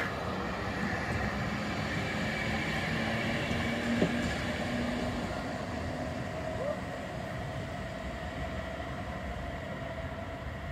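Bombardier Flexity Classic low-floor tram running past and moving off along the street, a steady rumble with constant motor tones, easing off after about six seconds. A single sharp click about four seconds in.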